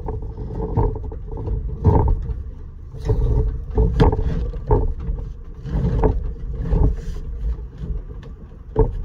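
Irregular dull knocks, about one a second, of code 5 lead sheet being tapped and dressed into shape over a stone window head, with a low rumble under them.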